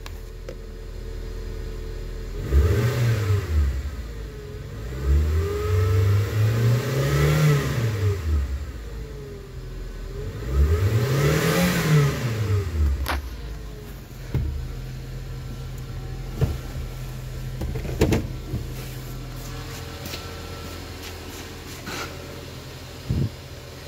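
Suzuki Jimny's 1.3-litre four-cylinder petrol engine idling, then revved three times, the tachometer reaching about 5,000 rpm, each rev rising and falling back to idle, before settling to a steady idle again; a free-rev test of an engine judged good. A couple of short sharp knocks near the end.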